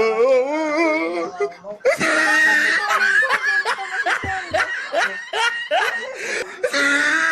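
Loud laughter and shrieks from several people, with high voices: a wavering laugh at the start, then a few voices laughing and squealing together from about two seconds in.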